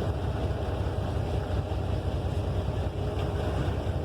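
Boat engine running steadily: a low rumble, with noise over it.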